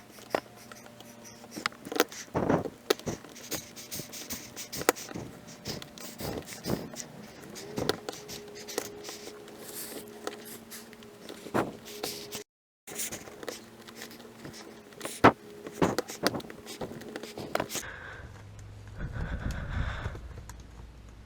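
Irregular plastic clicks and clacks of a MoYu Redi Cube being twisted by hand while it is solved. A faint, steady low hum runs underneath.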